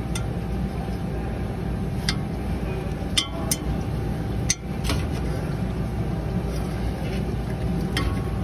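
A few sharp metal clinks of a wrench working a bolt on a forklift engine, over a steady low hum.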